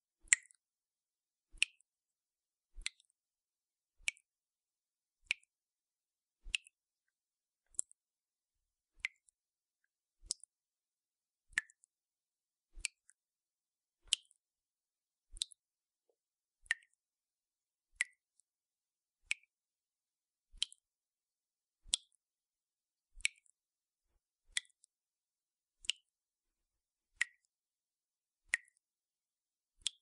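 Water dripping from a tap in a steady, even rhythm, one drop about every 1.3 seconds. Each drop is a short, sharp click with a brief high ring.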